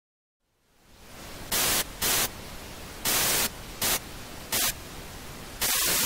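Television static: a hiss fades in, then crackles up in five short loud bursts before swelling into a steady loud rush near the end.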